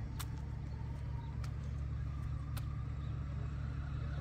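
Electric motor and gearbox of an RC rock crawler truck running at low speed as it crawls over a hump, a steady low drone with a few sharp clicks.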